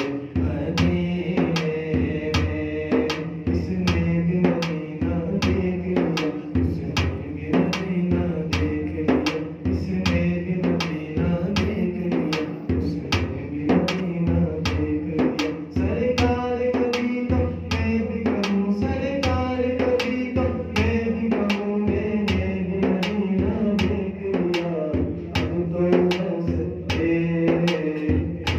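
A man singing a naat, a devotional song in praise of the Prophet, in long held lines, accompanied by a hand-beaten frame drum keeping a steady beat of about three strokes a second.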